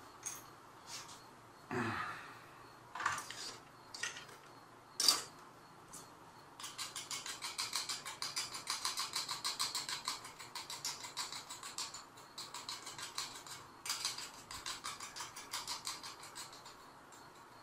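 Handling noise from small hard objects: a few separate clicks and knocks, then about ten seconds of fast, even rattling or scraping that fades near the end.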